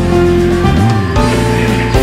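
Music: a tune of held, steady notes over a low bass line.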